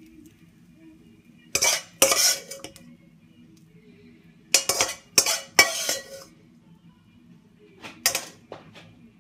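Metal spoon scraping and clinking against a wok and a plate as fried rice is served out, in three clusters of strokes: about a second and a half in, around five seconds in, and near the end. A faint steady hum runs underneath.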